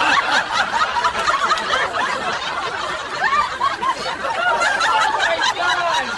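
Several people laughing and chuckling together, overlapping, after a joke.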